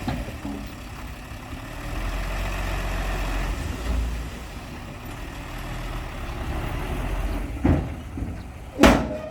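Heavy diesel engine of earthmoving machinery running with a low rumble that swells and eases, broken near the end by two sharp knocks, the second the louder.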